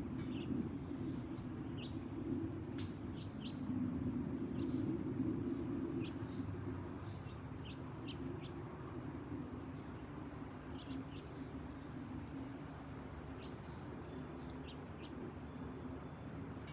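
Low, steady rumble of a passing Boeing 767-424ER airliner's jet engines, easing off slowly after the first several seconds. Small birds chirp in short calls throughout.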